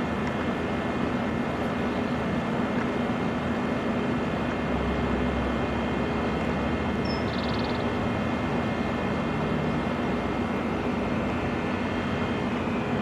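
Steady mechanical drone with a constant hum, and one brief high chirp about seven seconds in.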